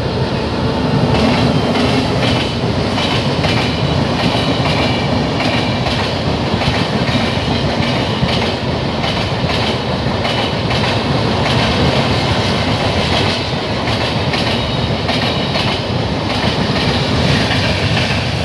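A WAP-7 electric locomotive and its train of air-conditioned passenger coaches running past close by, with a loud, steady rush of wheels on rail and a continuous clatter as the wheels cross rail joints.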